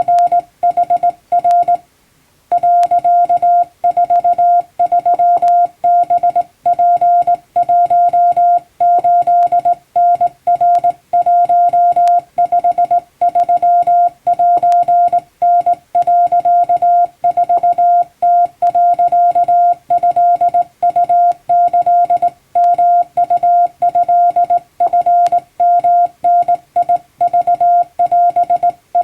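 Hand-keyed Japanese Wabun Morse code: a single steady tone of about 700 Hz switched on and off in rapid short and long elements, with a brief pause about two seconds in.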